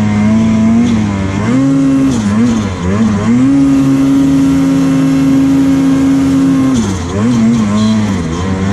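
Snowmobile engine revving up and down as the throttle is worked while climbing a steep slope. About a second and a half in, the revs rise and hold high and steady for about three seconds, then drop back to quick rises and falls.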